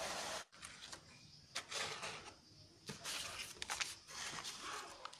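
Hands working the drawer of a cardboard toy cash register: cardboard scraping and paper rustling in several short, irregular bursts with a few light clicks.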